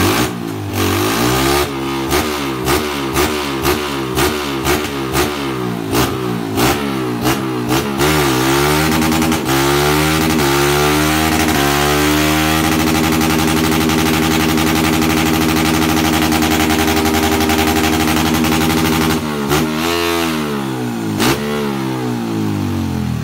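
Honda CG 160 Start single-cylinder engine, fitted with a performance camshaft and an SFX aftermarket exhaust, revving on a motorcycle dynamometer. A string of quick throttle blips gives way about eight seconds in to a full-throttle pull that climbs in pitch and holds high revs steadily for several seconds. The revs then drop, rise briefly, and the blipping returns near the end.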